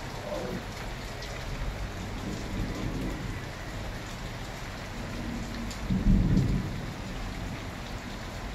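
Thunderstorm: steady rain falling, with thunder rumbling low and swelling to its loudest peal about six seconds in.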